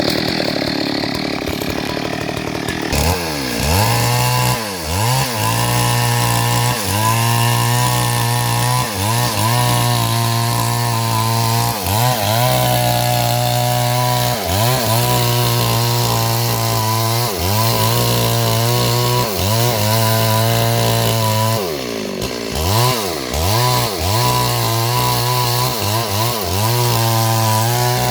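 Chainsaw cutting into a big tree. Its engine pitch repeatedly dips and recovers every second or two, with a rougher, unpitched stretch in the first few seconds.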